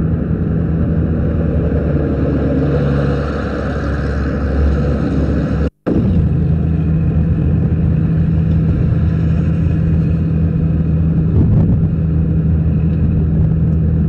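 A motor vehicle's engine and road noise, heard from inside the moving vehicle: a steady low engine hum over a rumble. The sound cuts out for a moment about six seconds in.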